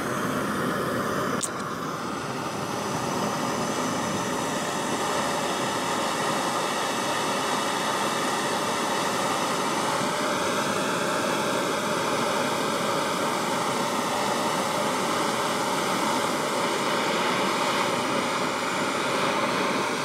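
Bernzomatic propane hand torch burning with a steady hiss, its flame held on an aluminum coil tube to melt a flux-core repair rod into the leak.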